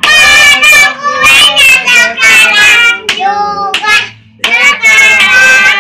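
Young girls singing loudly in high voices, in phrases broken by a couple of short pauses.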